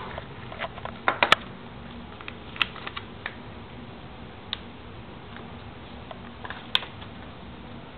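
A few scattered light clicks and crinkles as a small paper packet of cocoa powder is handled and emptied over a bowl of cake batter. A cluster comes about a second in, a few more are spread out, and one sharp one comes near the end.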